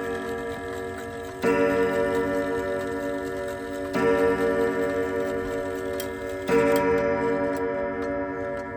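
Girod dual-chime clock striking the hour: three slow strikes about two and a half seconds apart. Each rings out with a pulsing hum until the next one.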